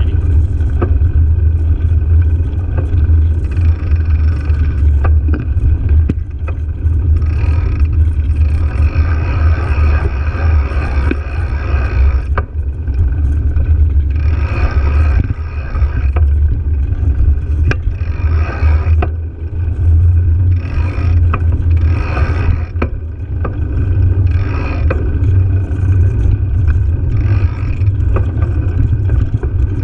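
Steady low rumble of wind buffeting the microphone and tyre and road vibration from a GoPro riding along on a bicycle over cracked asphalt. A higher-pitched noise comes and goes in stretches.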